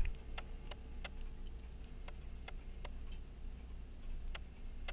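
Steady clockwork ticking, about three light ticks a second, from a running watch or clock movement.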